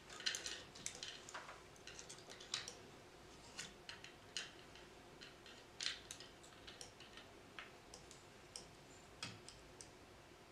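Faint, irregular clicks and light taps of small bolts and plastic and metal brackets being handled and fitted while a 3D printer's extruder carriage is assembled by hand.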